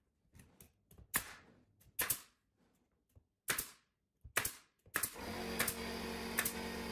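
Pneumatic nail gun firing nails into wooden trim: several sharp cracks about a second apart. A steady hum starts about five seconds in.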